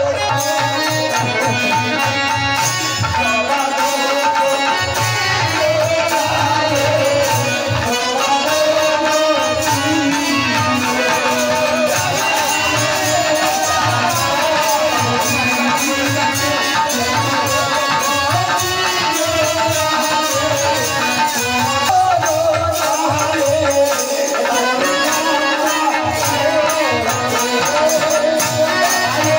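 Live folk music: a wavering melody over a steady, even drum beat.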